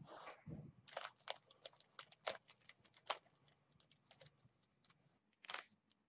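Plastic 3x3 Rubik's cube being turned in one hand: a quick run of sharp little clicks as its layers snap round, from about a second in to about three seconds, then a few scattered clicks near the end.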